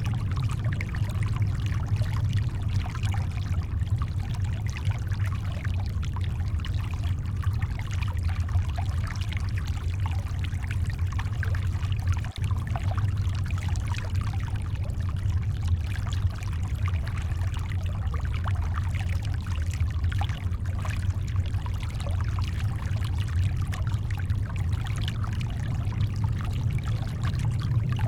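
Steady brown noise, a deep even rumble, blended with shoreline water that gives a fine crackling fizz over it. It runs without a break or any single event.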